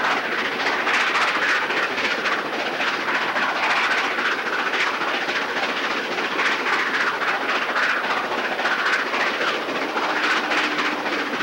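Nickel Plate Road 765, a 2-8-4 Berkshire steam locomotive, working its train at speed, heard from a few cars back: a steady rush of exhaust and rolling wheels with rail clatter. A faint steady low tone comes in near the end.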